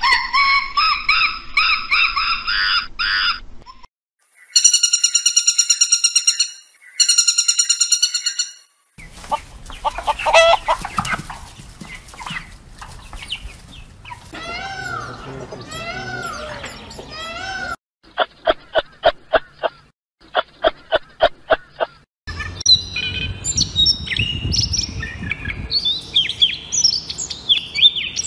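A string of animal calls. First a Japanese macaque's rapid run of high calls, then two long calls rich in overtones. Next a flock of chickens clucks and peeps, followed by a run of sharp pulses at about four a second, and finally a European robin's quick warbling song.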